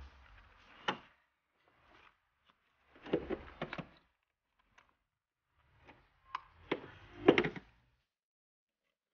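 Hand work on a Fiat Doblo's windscreen wiper linkage under the cowl: clicks, knocks and rattles of metal and plastic parts being fitted, in short bursts with quiet gaps, the loudest near the end.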